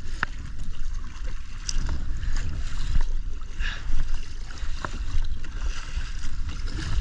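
Kayak paddle strokes splashing in sea water every couple of seconds, over a steady low rumble of wind on the microphone.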